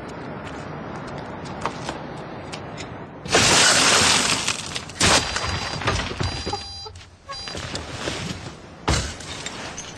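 A car's side window being smashed: a loud crash of shattering glass about three seconds in, lasting over a second, followed by a sharp knock about five seconds in and another near the end.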